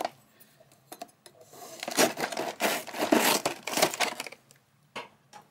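Cardboard toy box being torn open with a butter knife: a few light clicks, then a run of ripping and crinkling from about two seconds in, lasting about three seconds.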